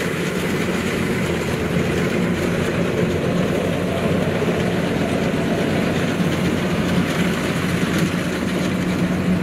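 Kubota rice combine harvester's diesel engine running steadily with a low hum while the machine cuts and threshes rice, the mechanical noise even throughout.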